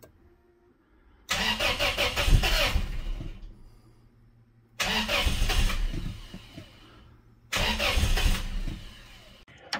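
Starter cranking a Toyota Tacoma's 3RZ-FE 2.7-litre four-cylinder in three tries of about two seconds each. The engine tries to catch but does not start. The mechanic suspects a bad cam or crank position sensor rather than slipped timing.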